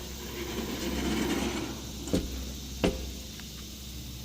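Storm shelter door being worked: a low scraping rumble, then two sharp knocks a little under a second apart.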